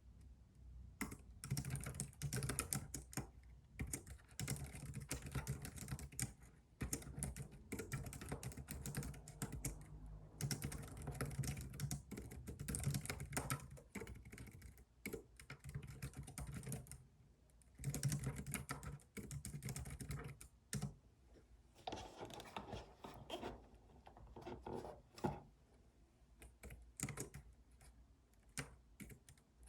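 Computer keyboard typing in quick runs of keystrokes, with brief pauses every few seconds.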